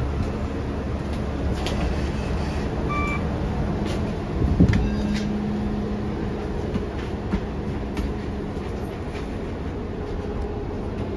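Steady low rumble of a New Flyer XD40 diesel city bus heard from inside the cabin. There is a short electronic beep about three seconds in and a thump near the middle, followed by a brief steady hum.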